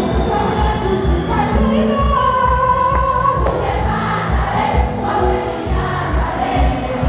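A large women's choir singing together in harmony, with a steady low beat pulsing under the voices.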